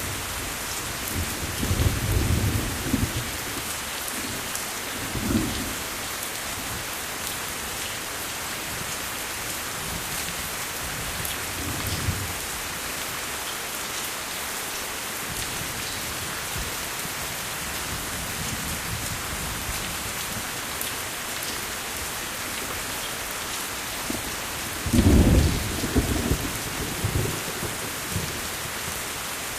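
Steady rain falling, with low rolls of thunder, the loudest about 25 seconds in and smaller ones near the start and around 12 seconds.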